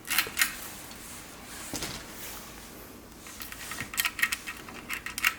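Light clicks and clinks of small parts and hand tools being handled: a few at the start, then a quicker run of them in the last two seconds.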